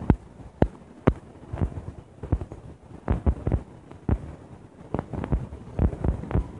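Fireworks going off: an irregular series of pops and thumps, two or three a second, some in quick clusters.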